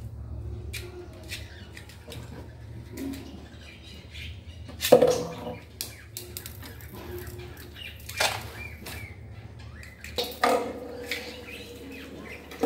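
Kittens playing with a spinning top at a plastic chair: a few sharp knocks and clatters, the first about five seconds in and the loudest, some with a short ringing tone after them, plus light scrabbling ticks over a steady low hum.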